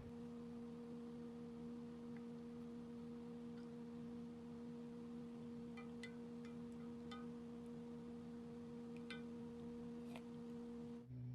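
Steady low electrical hum, one pure tone with a fainter one an octave above, with a few faint light clicks partway through.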